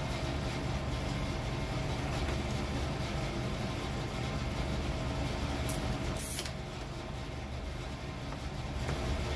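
Steady hum of a garage space heater running. A little past halfway come two brief, high rasping sounds, the second the louder.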